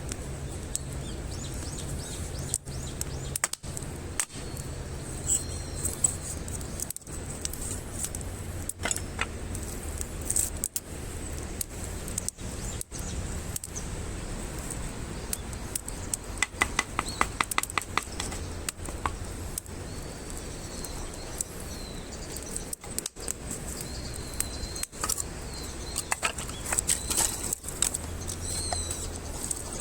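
Wood campfire burning with irregular crackles and pops, including a quick run of snaps about halfway through. Birds call now and then in the background.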